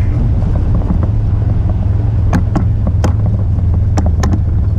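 A motor running with a steady low drone while under way, with about five sharp knocks or slaps in the second half.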